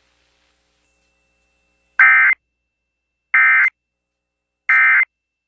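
Emergency Alert System end-of-message code: three short bursts of SAME digital data tones, each about a third of a second long and about a second and a half apart. It marks the end of the alert broadcast.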